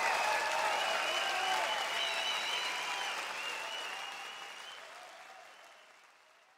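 Concert audience applauding and cheering, with whistles over the clapping, fading out over the last few seconds.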